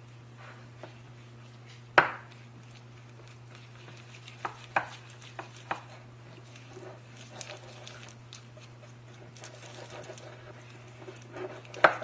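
A spatula stirring a stiff flour-and-starter mix in an enamel bowl, with soft scraping and occasional sharp knocks and clicks against the bowl. This is whole-wheat flour being worked into a homemade levain starter. A low steady hum runs underneath.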